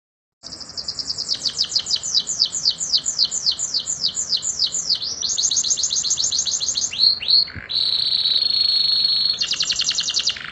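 Domestic canary singing a long rolling song, starting after a brief silence: a run of repeated down-sweeping notes, about five a second, that speeds into a faster trill, then two falling notes, a held whistle about eight seconds in, and a quick trill near the end.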